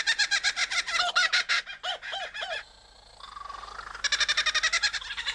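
Kookaburra laughing calls: fast runs of repeated rising-and-falling notes that break off about two and a half seconds in and start up again about four seconds in.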